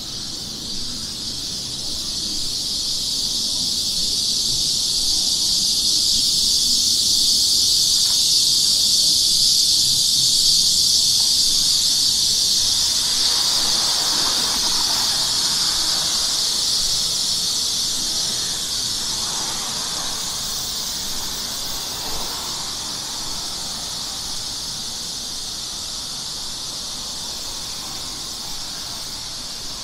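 Cicadas buzzing in a dense, high-pitched chorus that swells over the first ten seconds or so, then slowly fades.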